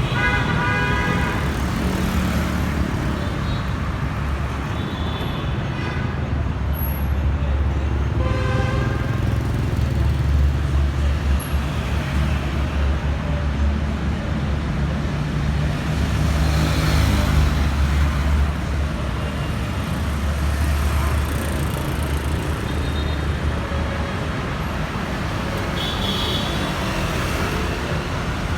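Busy street traffic: motor engines running with a steady, deep rumble, and several short horn toots, one near the start, one about eight seconds in and one near the end.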